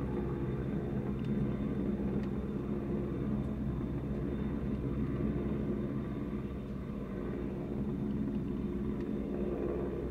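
Search-and-rescue helicopter hovering low over open water, its rotor and engines making a steady rumble.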